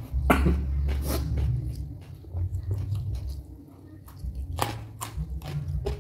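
Close-up biting and chewing of raw vegetables, with crisp crunches in two clusters, near the start and again near the end, over a low rumble.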